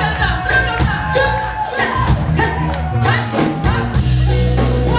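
Live band playing: a drum kit keeps a steady beat under electric guitar and bass guitar, with a woman singing lead into a microphone.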